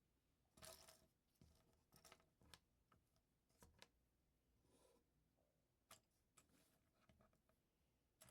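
Faint LEGO pieces being handled and pressed together: a scattering of sharp little plastic clicks with a few soft rustles in between.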